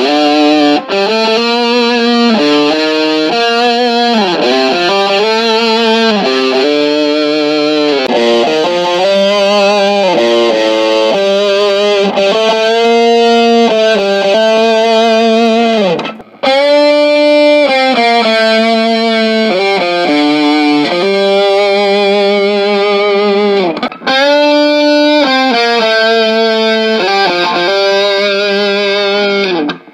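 Distorted electric guitar playing a slow lead melody of long, sustained notes with wide vibrato and bends, heard through a Celestion 12-inch guitar speaker. The playing breaks off briefly twice, about halfway through and again near the 24-second mark.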